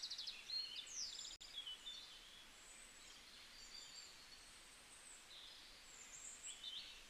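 Faint bird chirps and short high trills, several brief calls scattered through, some sliding down in pitch, over a quiet hiss.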